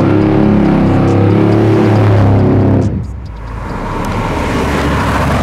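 Chevy Blazer's LSX V8 engine pulling hard under acceleration: a strong, steady note for about three seconds, a sudden dip, then the engine building again.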